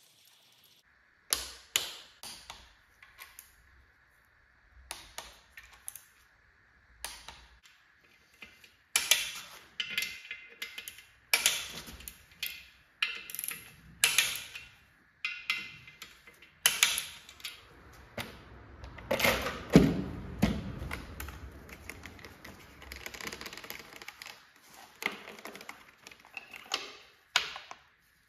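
Hand socket ratchet clicking in short runs, mixed with knocks of metal tools and parts, as bolts are run down on a BMW N47 engine's clutch pressure plate and cylinder head. The heaviest knock comes about two-thirds of the way through.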